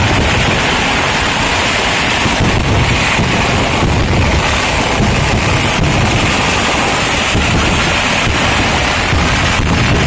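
Dense barrage of temple fireworks, the firecracker explosions following so closely that they merge into one steady, loud rumble.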